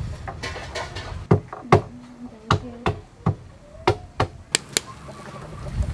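About ten sharp, irregular knocks and clicks in quick succession, the loudest of them in the first couple of seconds.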